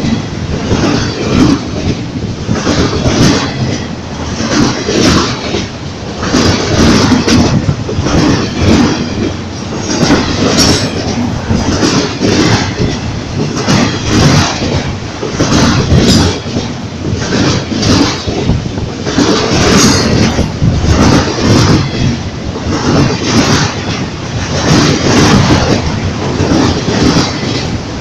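Ferromex freight train rolling past, its car wheels clacking over the rail joints in a steady run, about one or two clacks a second.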